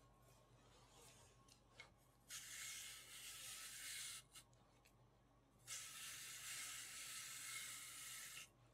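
Faint soft rasping hiss of a stainless steel hand-cranked apple sheeter's blade shaving a continuous thin sheet off a turning apple. It comes in two stretches, one starting about two seconds in and a longer one from about halfway through until just before the end.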